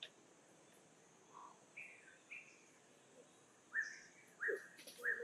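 A string of short, high chirping calls, about five, growing louder toward the end, over a steady high-pitched insect drone.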